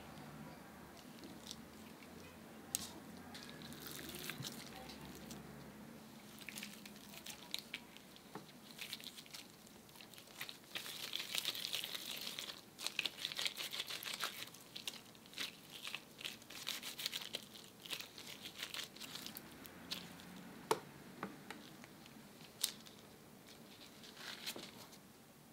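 Hands in disposable gloves shaping mashed sweet potato into small ovals: soft squishing and crinkling of the gloves, with scattered light clicks and taps. The crinkly rustling is busiest about halfway through.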